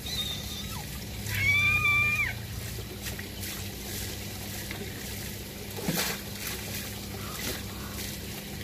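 A high, held call lasting about a second near the start, then light clicks and a sharper knock about six seconds in as a round mesh prawn trap is handled and baited.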